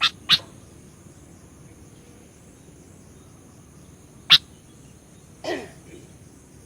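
Sooty-headed bulbul (kutilang) giving short, sharp chip calls: two in quick succession at the start and one about four seconds in. About a second later comes a longer note that falls in pitch. A steady, faint, high-pitched hiss runs underneath.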